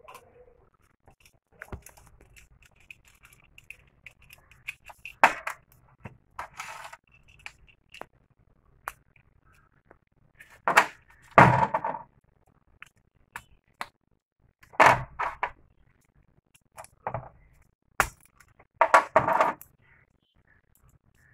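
A small screwdriver and a plastic two-pin mains plug being handled and taken apart: scattered clicks and scrapes of plastic and metal, with several short, louder rattling bursts as the parts are worked loose and set down.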